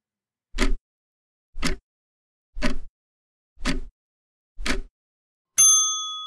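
Countdown timer sound effect: five ticks about a second apart, then a bright ding that rings on, marking that the time to answer the trivia question is up.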